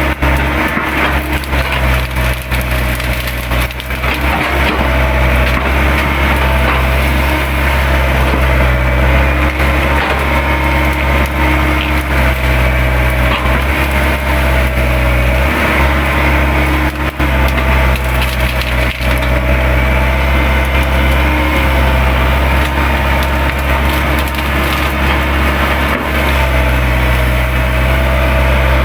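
Hydraulic excavator running under load, its diesel engine steady with a wavering hydraulic whine, while the bucket crushes and tears brush, the branches cracking and splintering, most heavily in the first few seconds.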